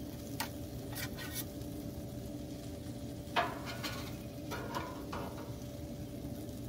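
Food sizzling on a Blackstone gas griddle, with scattered clicks and scrapes of metal tongs or spatula on the griddle top; the sharpest clack comes about three and a half seconds in.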